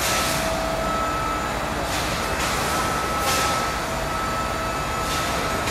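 Food-factory production machinery running: a steady mechanical drone with a constant whine, and short hisses every second or two.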